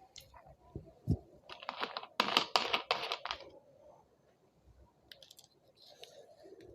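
Crinkling and clicking of a 2-litre plastic soda bottle being handled. A few sharp clicks and a knock come first, then a burst of crackling from about one and a half to three and a half seconds in.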